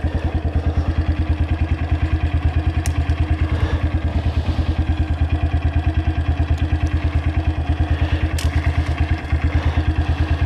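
Dirt bike engine idling at a standstill, with an even, fast pulsing beat. Twice there is a faint click.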